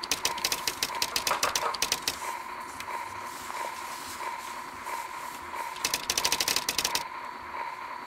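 Typewriter keys clattering in two quick runs, about ten strikes a second, one at the start and one near the end, over a steady high tone.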